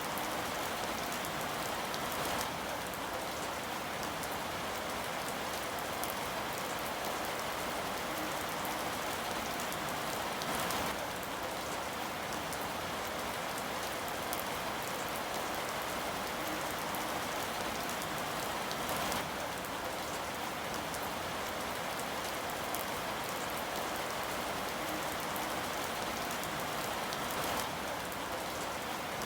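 Steady rain falling on a surface, an even patter of drops, with a few slightly louder splashes here and there.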